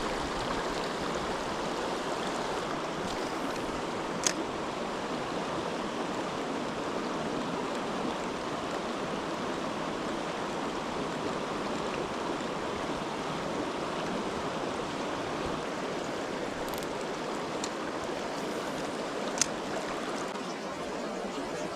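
Mountain stream water rushing steadily over rocks, with two sharp clicks, one about four seconds in and one near the end.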